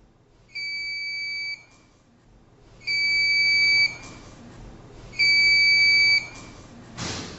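Nurse call station alarm sounding three long, steady electronic beeps, each about a second long and a couple of seconds apart, the last two louder. The alarm signals a fault passed on from a connected thoracic drainage unit. A short burst of noise follows near the end.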